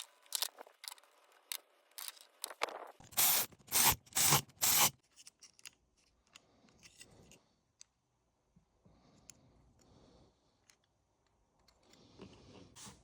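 Clicks and light rattles of small carburetor parts being handled and fitted during reassembly of a Holley 4160 carburetor. About three to five seconds in there are four short, loud noisy bursts, then only faint scattered clicks.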